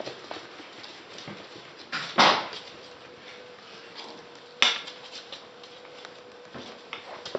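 West Highland White Terrier puppies at play: two short, sharp yaps, about two seconds and four and a half seconds in, the first the louder, amid light ticking and scuffling.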